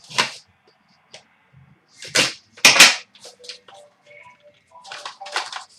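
Trading cards and their packaging being handled: several short, sharp swishes, the loudest two a little past two seconds in and just before three seconds.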